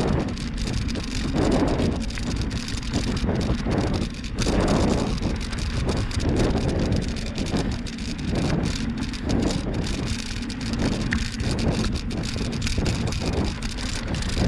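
Wind rumbling over the microphone of a bicycle on a dirt trail, with tyre and trail noise swelling and fading every second or two.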